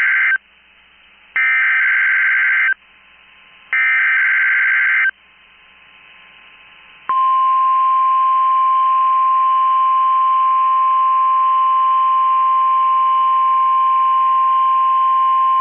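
NOAA Weather Radio SAME alert header: three shrill data bursts of about a second and a half each, the first ending just after the start, with short hissy gaps between them. About seven seconds in, the steady 1050 Hz warning alarm tone comes on and holds, sent here as part of the required weekly test, heard through a weather radio receiver.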